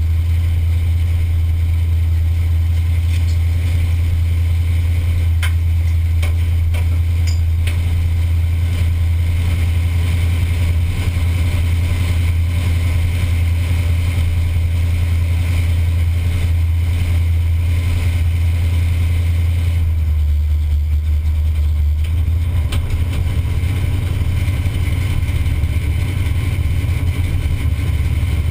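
Pontiac 455 V8 in a Buick station wagon, heard from inside the cabin, running at light throttle as the car rolls slowly: a loud, steady low rumble that eases off briefly about twenty seconds in, then picks back up.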